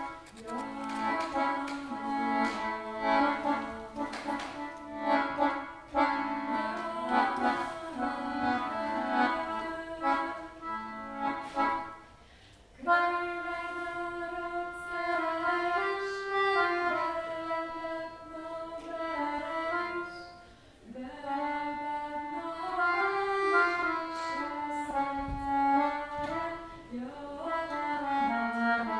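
Accordion playing sustained chords and melody, breaking off briefly twice.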